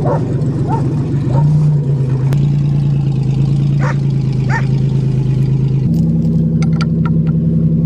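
Pontiac car engine idling steadily just after starting, its speed stepping up slightly about a second and a half in and again near six seconds.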